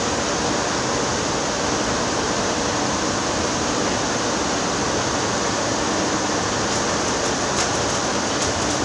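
Electric arc welding on a worn vibrating-screen shaft: the arc hisses and crackles steadily as weld metal is built up on the worn shaft.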